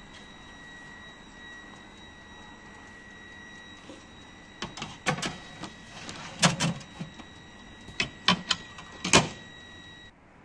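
A metal baking tray knocking and scraping against the rack as it is slid into a small countertop electric oven, a run of sharp knocks over a few seconds, then the oven's glass door clacking shut near the end.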